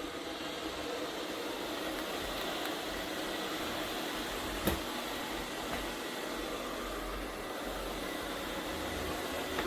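MAMNV robot vacuum and mop running steadily, a smooth motor and brush hum, with one sharp click about halfway through.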